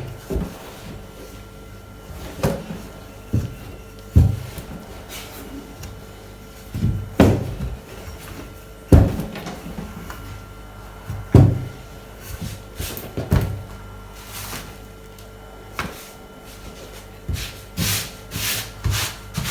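Irregular knocks and thumps of kitchen work on a wooden surface, roughly one every one to two seconds, with some rubbing and a faint steady hum underneath.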